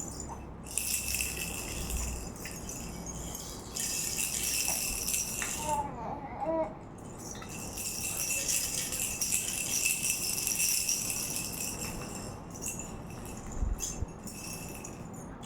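A toy rattle being shaken in three long bursts, a bright hissing jingle with a faint steady ring through it. A baby gives a short vocal sound about six seconds in.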